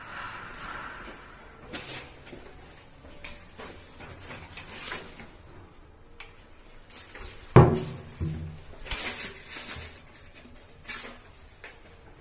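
Wooden cupboard doors being opened and closed: scattered knocks and clicks, with one loud thump about seven and a half seconds in.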